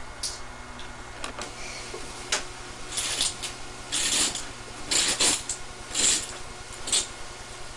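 Short rubbing and rustling noises, about one a second, over a steady low hum.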